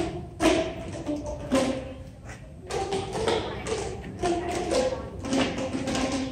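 A children's ensemble playing a tune on Boomwhackers, tuned plastic tubes, as a string of hollow pitched pops at about two a second, the pitch changing from note to note.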